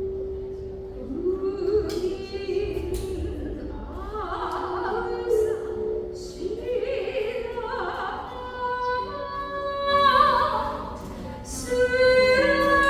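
Slow operatic-style singing: a voice holding long notes with a wide vibrato in a slow melody, climbing higher and louder about ten seconds in.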